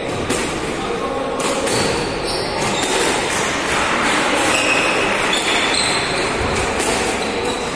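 Squash rally in an echoing court: the ball is struck by rackets and knocks off the walls with repeated sharp smacks, while shoes squeak on the wooden floor.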